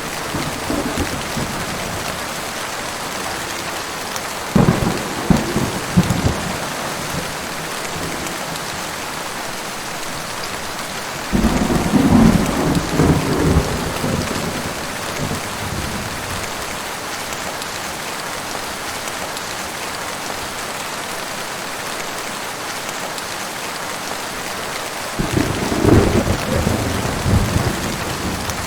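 Heavy rain falling steadily, with three loud rolls of thunder rumbling in: one about four and a half seconds in, a longer one around twelve seconds, and another near the end.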